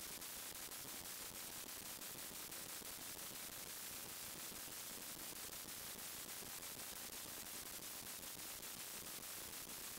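Steady static hiss with faint, evenly spaced ticks a few times a second: electrical noise on a sewer inspection camera's recording.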